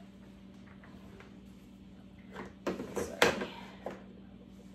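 A few knocks and clatter of small objects being handled on a desk, as the eraser is searched for. They are loudest about three seconds in, over a steady low hum.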